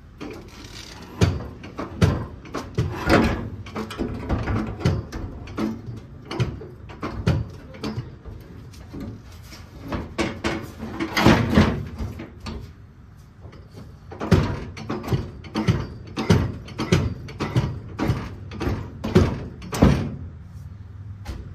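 Irregular metallic clunks, knocks and scrapes as a steel convertible rocker panel assembly is raised on a floor jack and worked into place against the car body. In the second half the knocks come in a more even run, about one every half second or so.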